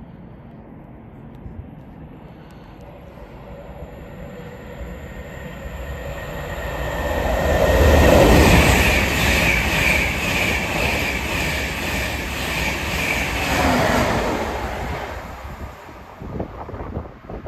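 Class 91 electric locomotive and its InterCity 225 train passing through at speed: a rise as it approaches, then a steady run of wheel clatter over the rail joints with a high whine for about six seconds, before it dies away.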